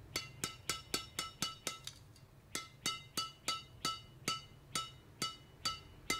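Repeated sharp clinks, about three or four a second, each with the same bright metallic ring, pausing briefly about two seconds in.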